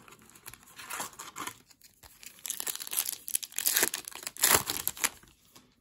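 Foil wrapper of a hockey card pack crinkling and tearing as it is ripped open by hand, loudest about four and a half seconds in.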